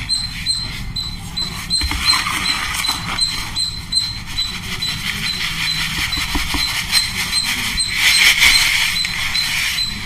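Dry, gritty grey powder poured and crumbled by hand from a plastic bowl onto a heap, a soft hissing pour that is loudest about eight seconds in. Behind it a bird gives a short high chirp about twice a second throughout.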